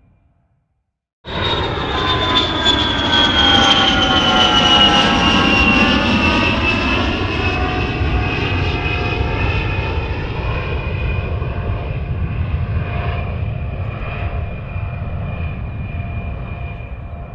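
Jet aircraft flying past: a loud rush with a deep rumble starts abruptly about a second in. A high whine falls in pitch over several seconds, then the sound slowly fades.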